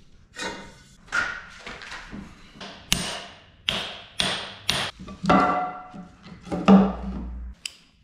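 Hammer blows on the steel parts of a backhoe's hydraulic cylinder: a dozen or so sharp strikes, irregularly spaced about half a second apart, each with a short metallic ring.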